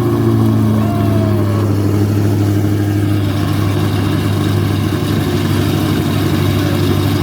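Corvette C8's V8 idling steadily and loudly, moments after starting, through newly fitted headers and a full aftermarket exhaust, with a deep, even exhaust note.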